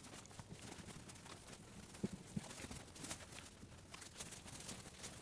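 Faint swishing of a microfiber drying towel being wiped over painted test panels, with a few light knocks.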